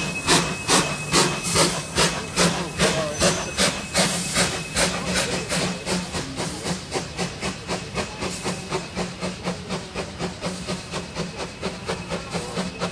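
Steam locomotive A10 No. 6, a small 1865 Neilson tank engine, pulling away: its exhaust chuffs start at about two a second and quicken to about four a second as it gathers speed, over hissing steam. The chuffs grow fainter as it moves off.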